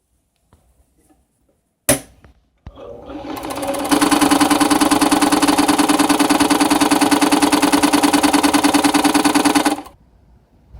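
New Home 702 sewing machine: a sharp click, then the machine speeds up and runs fast with a rapid, even knocking for about six seconds before stopping suddenly. The knocking is the banging noise the owner reports from the machine.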